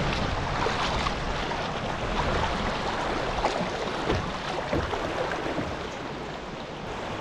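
Steady rush of river water moving around a tandem canoe, with occasional splashes of paddle strokes.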